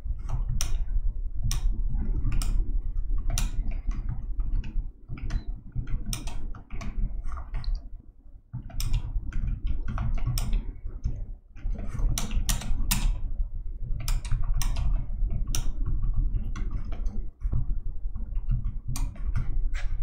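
Typing on a computer keyboard: a quick, irregular run of keystrokes with a short pause about eight seconds in.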